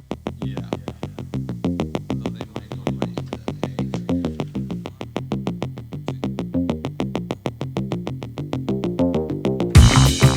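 Background electronic music: a synthesizer playing a fast, even run of short notes, with a louder full beat with drums and bass coming in near the end.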